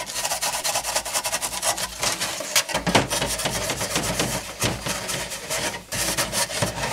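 Red Scotch-Brite pad rubbed by hand over a Fox-body Mustang plastic interior trim panel: a rapid, rasping scuff of many short strokes with a brief pause near the end. The panel is being scuffed as prep for paint.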